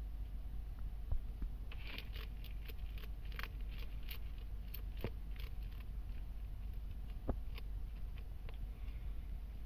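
A bearded dragon chewing a cricket: a run of crisp crunching clicks from about two seconds in to past the middle, then a few scattered clicks.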